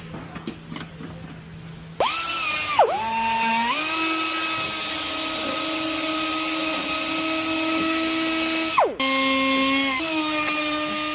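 A handheld electric power tool, such as a drill, starts about two seconds in with a whine. It bogs down briefly under load and then runs steadily at a higher speed. Near the end it stops for a moment, restarts at a lower speed and changes speed again.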